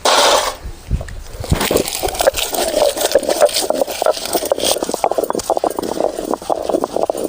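Roasted spices and garlic being crushed and ground on a stone grinder: a dense, fast clatter of stone knocking on stone, after a short burst of noise at the start.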